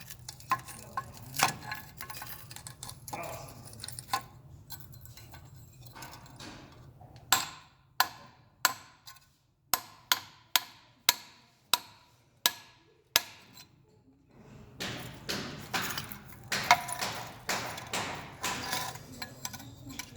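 Hammer blows breaking the mold off a freshly cast bronze piece: a few scattered knocks, then a run of about a dozen sharp, loud strikes at roughly two a second, each with a short ring, followed by a busier stretch of lighter knocking and crumbling.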